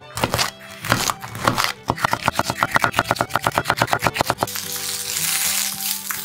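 Knife cutting a red bell pepper on a wooden cutting board: a few single strokes, then quick, even chopping at about eight strokes a second. About four and a half seconds in, this gives way to sliced peppers sizzling in olive oil in a frying pan.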